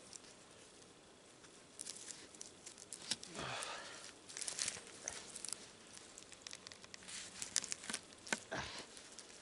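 Braided cord being wrapped and pulled tight around bark-covered poles while a clove hitch is tied: faint, scattered scratchy rustles and small clicks, with a few sharper ticks near the end, mixed with the rustle of a wool sleeve.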